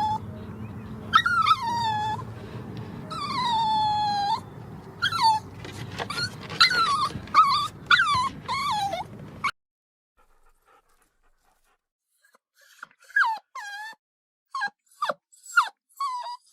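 A dog whining and whimpering: drawn-out whines that fall in pitch, then shorter, quicker cries. The sound cuts off suddenly about nine and a half seconds in, and after a short silence softer, brief whimpers start again.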